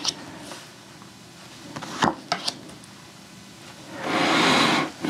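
A deck of tarot cards being shuffled by hand: a few soft clicks and taps of the cards, then a dense burst of cards sliding together for about a second, starting about four seconds in.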